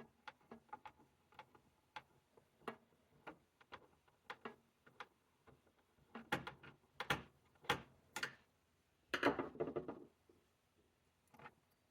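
Irregular light clicks and taps of a desktop computer's case and parts being handled, with louder knocks between about six and eight seconds in and a short rattling clatter about nine seconds in.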